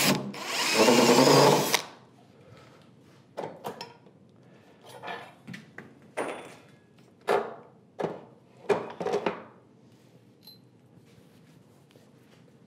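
Cordless drill running for about two seconds as it bores a pilot hole into the wooden bench leg through a castor's mounting plate, then stops. Several short knocks and handling sounds follow, spaced about a second apart.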